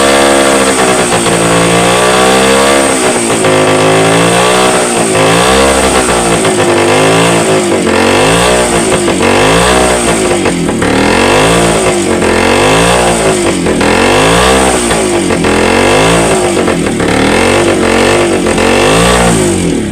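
Motorcycle engine running and being revved over and over, its pitch rising and falling: a few slow swells first, then quick regular blips about once a second.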